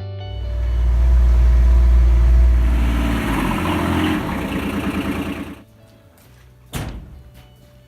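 Kawasaki Mule Pro-DX's 22 hp three-cylinder diesel engine pulling the vehicle along. A deep rumble gives way to a rising engine note as it accelerates, and the sound cuts off abruptly about five and a half seconds in. A single thump follows about a second later.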